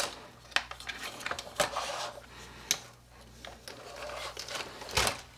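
Hard plastic clicks and knocks from an MN128 RC crawler's body shell and chassis being lifted and handled on a wooden workbench, with a louder thump about five seconds in as the shell is set down.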